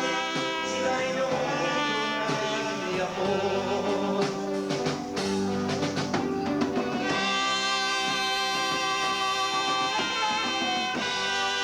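Live dance band playing a song: singing over drums, giving way about seven seconds in to steady held instrumental chords.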